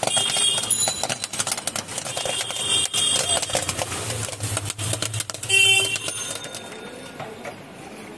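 Corn popping in a street popcorn machine's steel kettle: a dense, rapid crackle of kernels bursting and popped corn spilling onto the metal tray, dying down after about six seconds. A brief high-pitched ring cuts in about two-thirds of the way through and is the loudest moment.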